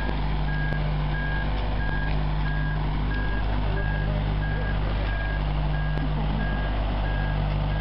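Boat travel lift's engine running steadily, with its warning alarm beeping evenly, about three beeps every two seconds.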